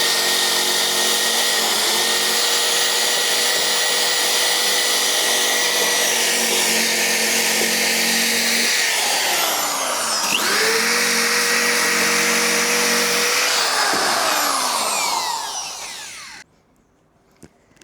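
Handheld electric power tool running against the car's body panel, most likely stripping paint from the hinge panel's edges. It runs steadily, winds down about nine seconds in, spins back up a second later, then winds down again and stops about three quarters of the way through.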